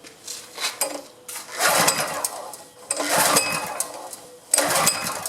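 Honda GX200 engine being pull-started: three quick yanks of the recoil starter rope crank the engine, which turns over but does not catch, even with starting fluid in the cylinder.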